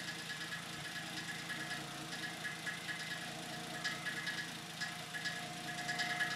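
Turbocharged Toyota 2JZ straight-six idling cold just after a rebuild, with short clicking noises repeating over the engine note. The idle is not yet good, and a melted wastegate vacuum line is leaking.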